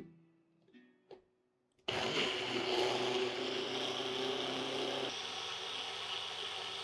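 Electric mixer grinder starts about two seconds in and runs steadily at high speed, its small jar grinding soaked sabudana and samak rice into a fine dosa batter. A light click comes just before, as the jar is held on the base.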